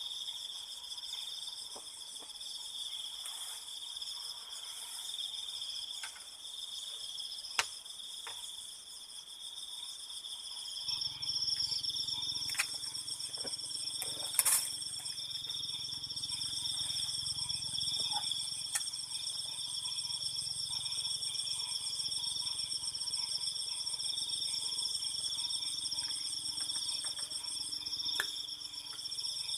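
Night crickets trilling steadily in several pitches at once. About eleven seconds in, a low steady hum joins, and a few sharp clicks sound now and then.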